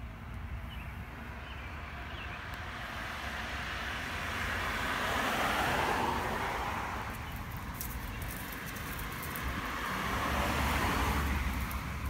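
Road traffic: two cars passing in turn, each swelling and fading away, the louder moments about six and eleven seconds in.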